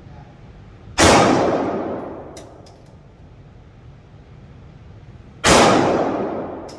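Two 9mm shots from a Glock 48 pistol, about four and a half seconds apart, each a sharp crack followed by a long echoing decay off the walls of an indoor range. A few light metallic clinks come after the first shot.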